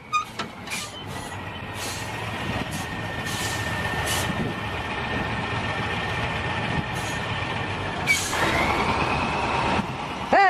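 A heavy truck's engine running and working harder, with a steady high whine and a few sharp knocks in the first couple of seconds. Near the end the whine rises, then a loud shout breaks in.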